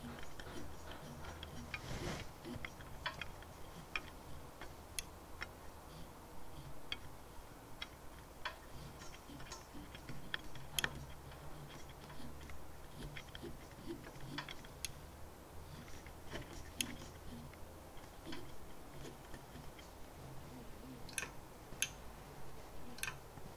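Mechanical end-stop limit switch clicking: short, sharp clicks at irregular intervals, more of them close together near the end. Each click is the switch tripping as the carriage on the lead screw reaches it, the signal that tells the stepper motor where to stop.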